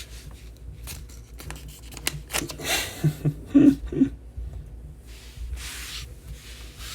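Trading cards and their packaging handled on a table: scattered clicks, taps and rustles.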